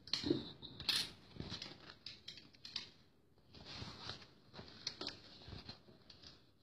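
Fabric rustling in irregular bursts as a sewn piece is handled and turned over, with a few light clicks.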